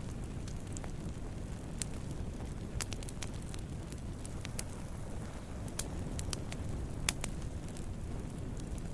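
Wood campfire burning: a steady low rumble of flames with irregular sharp crackles and pops, the loudest pop about seven seconds in.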